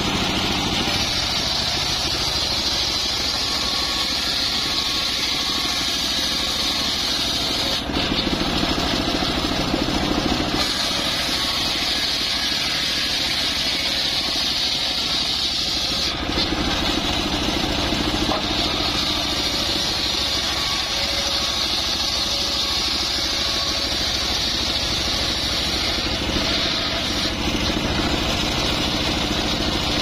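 Homemade engine-driven table circular saw running steadily, its large blade spinning and ripping gmelina logs lengthwise into beams and rafters.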